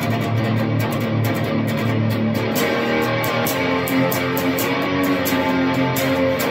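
Godin xtSA electric guitar played through a crunch-set amp: a doom-style riff of quickly picked notes, low at first, moving up to higher notes about two and a half seconds in.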